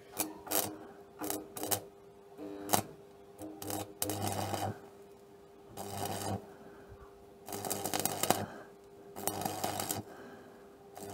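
Stick-welding arc from a 2 mm electrode on thin steel sheet, crackling and sputtering in about eight short bursts of a second or less as the arc is struck and breaks off again while tacking, over a steady faint hum.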